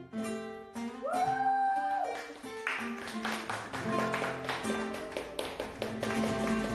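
Classical guitar playing, with a single held sung note about a second in. From about two and a half seconds in, fast percussive strums and taps, with hand claps, run over the guitar.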